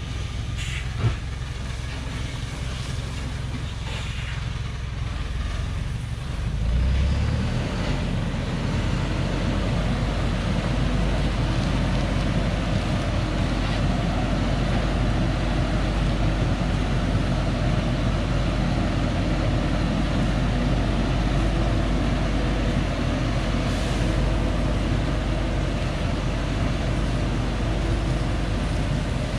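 Thaco Forland FC950 4WD truck's diesel engine pulling under a heavy load of acacia logs on a dirt forest track. A sharp click about a second in; the engine grows louder about seven seconds in and then runs steadily.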